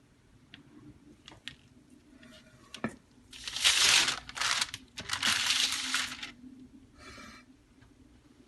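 Cake pan and plate being handled as a baked cake is turned out of its pan onto a serving plate: a few light knocks, then about three seconds of rustling, scraping noise in several bursts, and a short rustle near the end.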